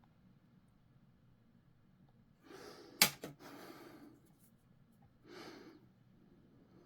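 Breaths close to the microphone, with a single sharp click about three seconds in.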